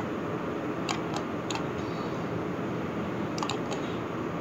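Steady background hiss of microphone and room noise, with a few faint clicks about a second in, at one and a half seconds, and a small cluster near three and a half seconds.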